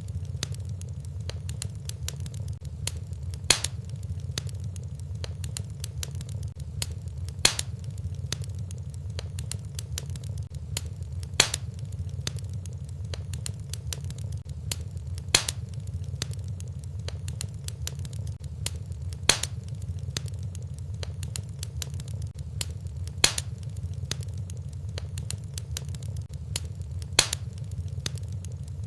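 Wood fire burning in a fireplace: steady low rumble of the flames with constant fine crackling, and a sharp louder pop about every four seconds.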